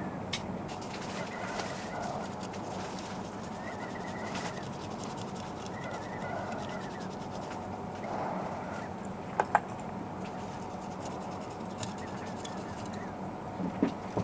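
Steady low hum of a BGA rework machine heating the laptop CPU, with two sharp clicks about nine and a half seconds in.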